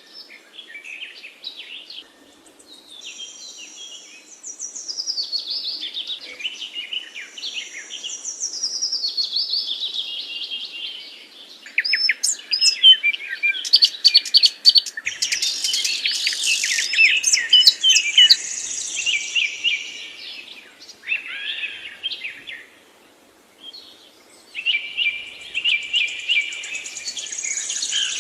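Several small birds chirping and twittering together in quick overlapping calls and trills, thickest in the middle stretch, with a brief lull near the end.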